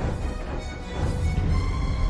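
Film score music with a strong, steady low rumble underneath.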